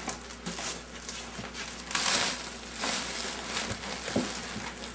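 Plastic sheeting crinkling and rustling as hands pull and press it inside a cardboard box, with the box flaps scraping; the rustle swells about two seconds in and again a little later, and a few light knocks come near the end.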